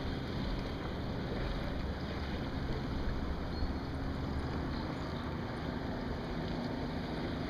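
Steady wind buffeting the microphone and water washing along the hull of a Sunfish sailboat under sail.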